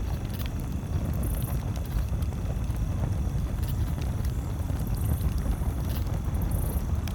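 Campfire crackling, with sparse sharp pops, over a steady low rumble; a few short high hisses come and go.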